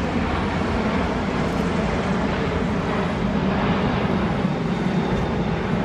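Steady engine noise of a large four-engined Airbus aircraft in flight during a flying display, swelling slightly around the middle.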